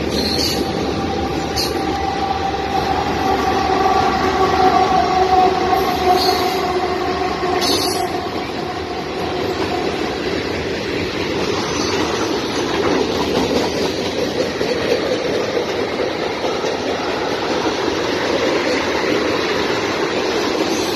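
Freight cars of a Canadian Pacific train, mainly tank cars and covered hoppers, rolling past with a steady rumble of wheels on rail. A high, steady wheel squeal sounds over the first half and fades out about ten seconds in, and a few short sharp clicks come early.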